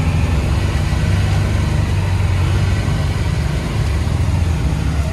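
Six-wheeled ATV's engine running steadily while riding.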